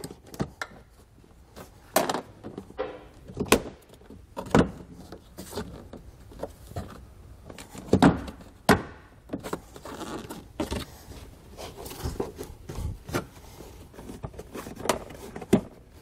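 Hard plastic interior trim panel being pried loose with a plastic trim tool: irregular clicks, knocks and scraping of plastic on plastic as the panel's clips are worked free, with a few louder knocks about halfway through.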